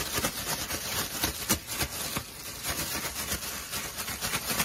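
Thin plastic bag crinkling and rustling in quick, irregular crackles as it is shaken by hand to coat pieces of thick fried tofu in a soy-sauce and ginger marinade.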